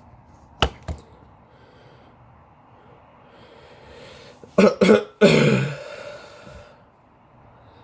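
A person coughing: two short sharp coughs, then a longer harsher cough that falls in pitch, over a faint steady background hiss. Two sharp clicks come shortly before, near the start.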